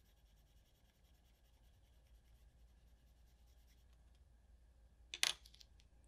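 Faint, fast scratching of a coloured pencil shading on paper, then a sharp clack about five seconds in as the pencil is put down, with a few lighter clicks after it.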